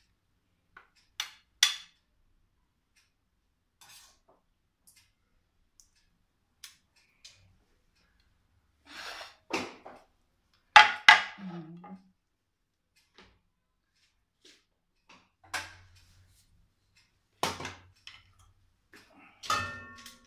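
Scattered clinks and scrapes of a metal spoon against a ceramic serving plate and a stainless-steel pot while stew is served. Near the end comes a ringing metal clank as the pot lid is handled.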